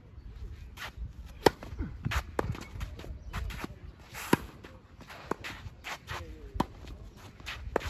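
Tennis racket hitting the ball during a groundstroke drill: sharp pops a couple of seconds apart, the loudest about a second and a half and about four seconds in, between softer knocks of ball bounces and footsteps on the hard court.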